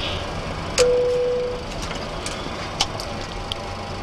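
Switches on a Boeing 737-400 flight deck clicking several times over a steady hiss. The loudest click comes about a second in and is followed by a brief steady tone lasting under a second.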